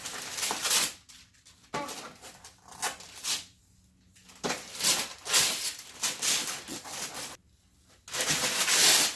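Wrapping paper rustling and tearing in irregular bursts as a present is unwrapped, with a longer, louder rip near the end.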